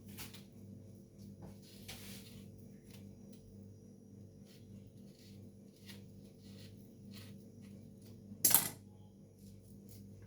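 Faint knife clicks and scrapes of citrus being peeled on a plate over a steady low hum, with one loud, short clatter of a utensil or dish knocking about eight and a half seconds in.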